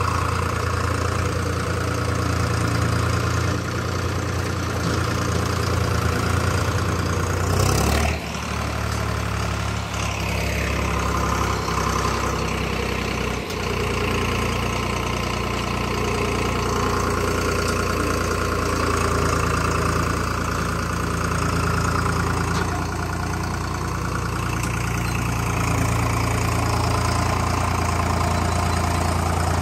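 Diesel tractor engine running steadily, with a short sharp knock about eight seconds in, after which the engine note shifts.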